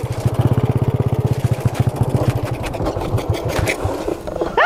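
Small motorbike engine running at low speed with a fast, even chugging beat; the beat grows weaker and sparser after about two and a half seconds.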